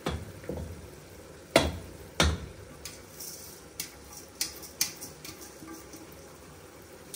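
Cooking utensils clinking and knocking against a pot in a series of sharp, irregular clinks, the loudest two about a second and a half and two seconds in, over a low steady kitchen background.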